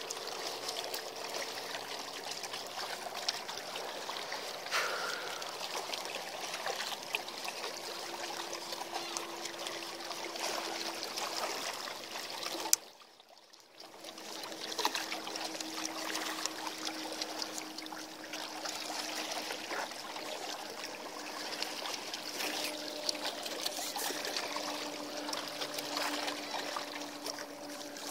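Seawater lapping and trickling in a steady wash, with a faint steady hum beneath it. A sharp click about halfway through is followed by a second of near silence before the water sound resumes.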